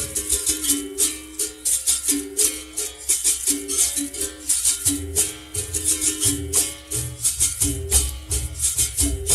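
Berimbau playing a capoeira rhythm, its notes stepping back and forth between a couple of pitches, with the caxixi basket rattle shaken in a steady pattern.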